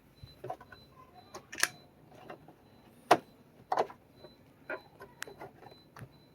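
A series of irregular clicks and knocks, the loudest about three seconds in.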